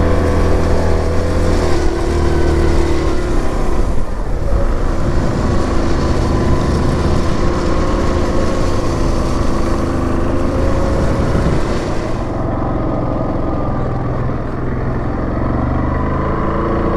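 Yamaha Grizzly 700 ATV's single-cylinder four-stroke engine running while riding, its pitch rising and falling with the throttle. A hiss over it drops away about twelve seconds in.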